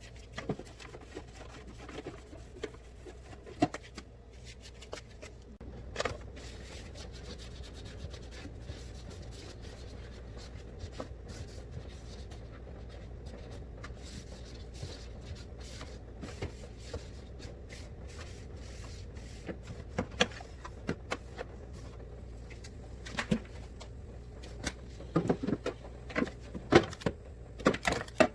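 Jars, bottles and food containers being handled and set down: scattered knocks, clicks and rubbing, more frequent and louder in the last few seconds, over a steady low hum.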